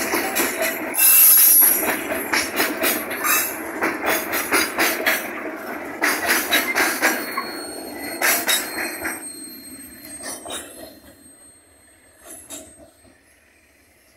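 Loaded freight flatcars rolling past on the rails, wheels clacking over the rail joints, with a brief high squeal about a second in and a thin high wheel squeal later. The sound fades after about nine seconds as the last wagon passes and the train moves away.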